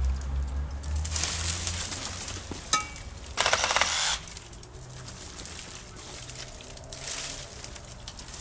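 Branches and brush rustling, a sharp click with a short metallic ring just under three seconds in, then a loud burst of about a second from a cordless reciprocating saw cutting a branch.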